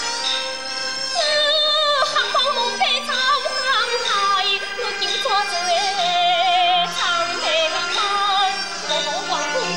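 Teochew opera aria: a high solo voice singing an ornamented, wavering melody over instrumental accompaniment.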